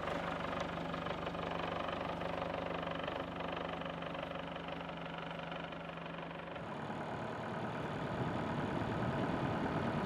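Sailboat's inboard diesel engine running steadily as the boat motors along, a constant drone; the sound changes about two-thirds of the way through.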